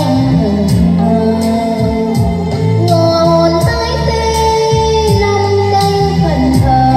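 Music: a song's accompaniment with a steady drum beat, bass and a sustained melody line.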